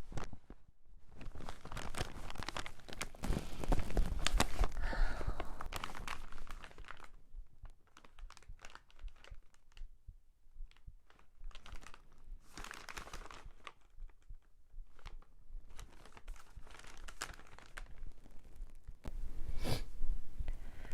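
Close rustling and crinkling with scattered clicks, heaviest in the first third and sparser after, with one louder burst near the end.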